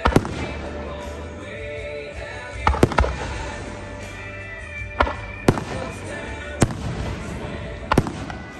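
Aerial firework shells bursting: sharp bangs about every one to two seconds, some in quick doubles, with music playing underneath.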